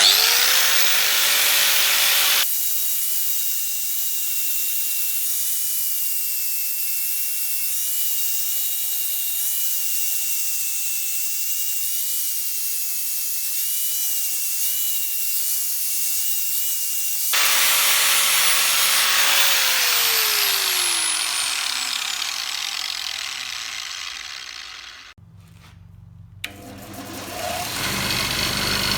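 Electric grinder motor spinning up with a rising whine, running steadily with grinding noise, then winding down with a falling pitch after about 17 seconds. The sound changes abruptly a couple of times, as at edits.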